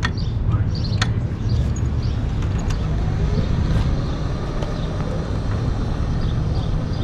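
Outdoor street ambience: a steady low rumble, with small birds chirping repeatedly and a single sharp click about a second in.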